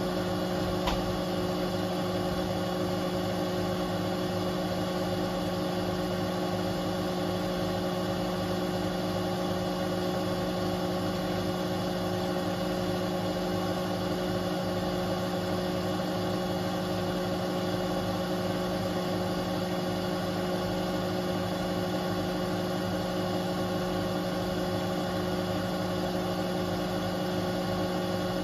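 Beko WTK74011W front-loading washing machine spinning its drum steadily on a 1400 rpm spin-and-drain programme: an even motor hum made of several steady tones. There is one brief tick about a second in.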